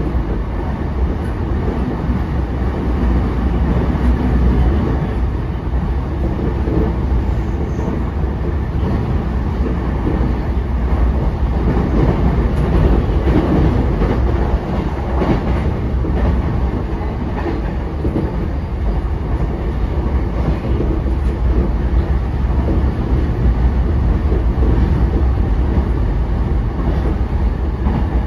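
JR East E233-5000 series electric train running at speed, heard from inside the passenger car: a steady, loud rumble of wheels on rail and car body, with a few faint clicks over rail joints midway.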